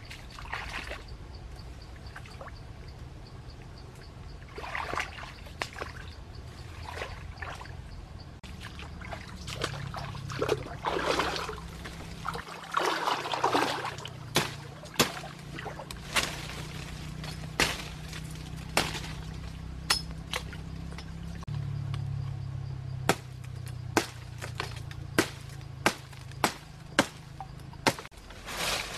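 Splashing and sloshing of feet wading through shallow stream water. About halfway in, a large knife starts chopping at a tree branch: a series of sharp strikes, roughly one a second.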